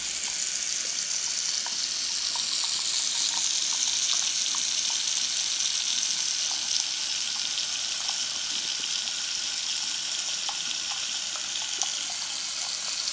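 Tap water running steadily into a sink from the freshly repaired Delta faucet, an even hiss of flowing water.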